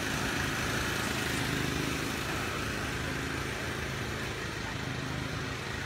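Portable petrol generator running steadily with an even engine hum, supplying the site's power in place of a mains connection. It grows slightly fainter after about two seconds.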